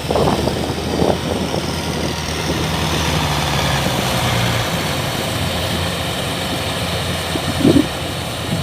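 Kubota DC-105X combine harvester's diesel engine and machinery running steadily, with a few brief louder rumbles about a second in and near the end.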